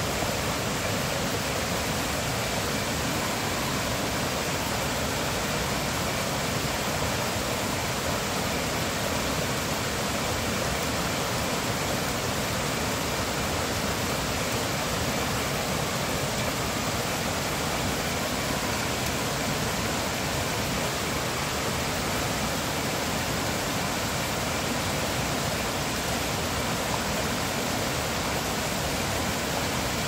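Shallow rocky stream flowing over stones and small cascades: a steady, even rush of water that does not change.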